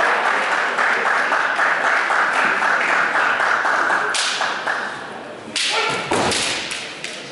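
Kendo fencers' long, drawn-out kiai shouts, then about five and a half seconds in a sudden attack: a sharp shinai strike and a heavy foot stamp on the wooden floor, with a short shout.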